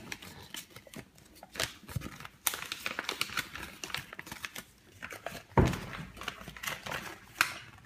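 Plastic wrapping of a mystery toy pack crinkling and tearing as it is opened by hand, with scattered small clicks and a single louder thump about five and a half seconds in.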